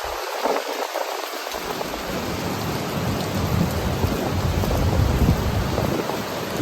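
Ocean surf: a steady wash of noise with a wave's low rumble building about a second and a half in and easing off near the end.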